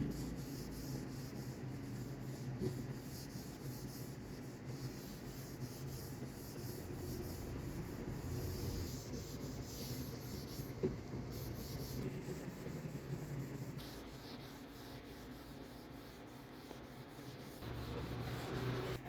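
Something rubbing over a wooden surface, an uneven scratchy rubbing, over a low steady hum.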